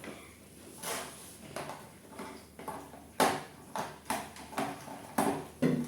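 About ten sharp clicks and knocks at uneven intervals, with no motor running: the rotary hammer being handled and readied before a test run.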